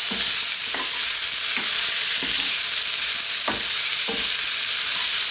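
Lamb tibs with onion and bell peppers sizzling in oil and butter in a non-stick wok. A wooden utensil stirs them, knocking and scraping against the pan about once a second over the steady sizzle.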